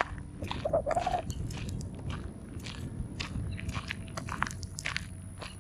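Footsteps crunching on a gravel trail, with a brief higher tone about a second in.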